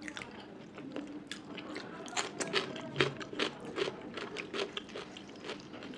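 A person chewing food close to the microphone, with a quick run of short mouth clicks that is thickest in the middle.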